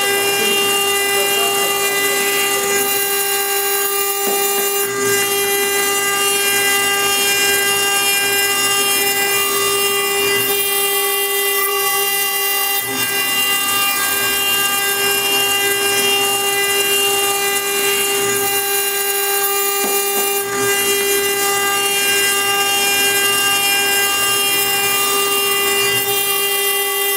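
CNC-1218 router's high-speed spindle engraving a stone slab under a water coolant jet: a steady high whine with several overtones over a constant grinding hiss.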